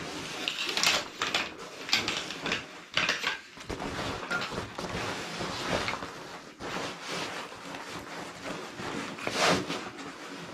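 Fabric rustling and the clicks and light knocks of metal frame poles as a folding camp shelf is collapsed and its fabric body rolled up, with a few sharper knocks scattered through.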